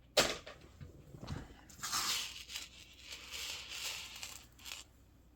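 Hands handling jewelry and packaging: a sharp click just after the start, then about three seconds of crinkling and rustling that stops shortly before the end.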